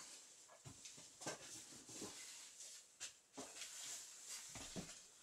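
Faint, scattered light clicks and knocks of small objects being handled, spaced irregularly about a second apart.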